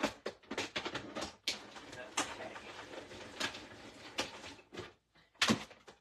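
Manual die cut machine being cranked to cut a die through vellum: irregular clicking and rattling as the plate sandwich rolls through, with a sharp clack about five and a half seconds in.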